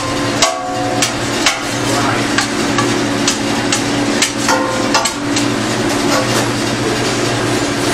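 Long metal paddle stirring and scraping food in a stainless steel tilting skillet, with irregular sharp metallic knocks against the pan roughly once or twice a second, some ringing briefly. A steady low hum runs underneath.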